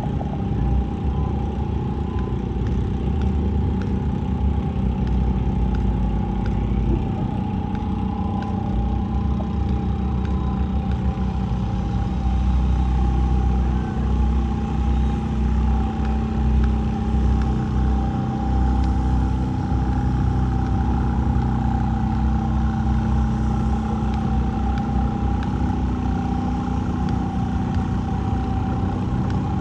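An engine running steadily with a constant drone and a steady higher whine.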